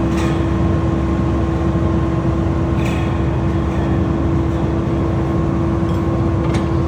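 Heavy engine running steadily at a constant speed, with a strong droning hum over a low rumble; a couple of short metallic clicks sound near the start and about three seconds in.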